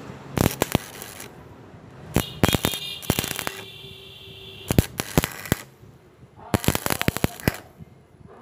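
Stick welding arc on thin square steel tube, crackling and spitting in four short bursts with quieter gaps between them, as the arc is struck and broken in turn.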